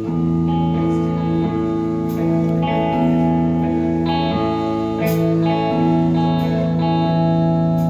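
Live band playing a song's instrumental intro: electric guitar chords over bass guitar, changing chord about once a second.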